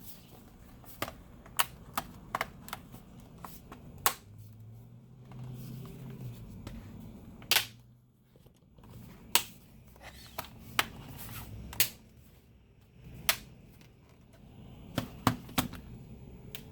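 Plastic clips of an HP Stream laptop's bottom cover snapping into place as the cover is pressed shut: about fifteen sharp clicks at irregular intervals.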